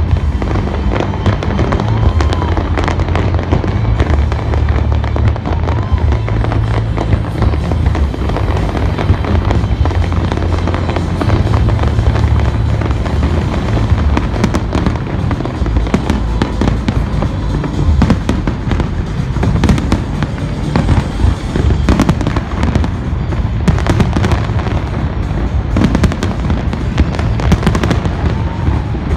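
Large fireworks display: a dense, continuous run of bangs and crackles from many shells going off, over music with strong bass notes.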